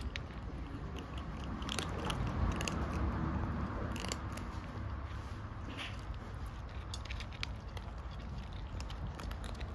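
Several kittens crunching dry cat food kibble, an irregular run of crisp chewing clicks.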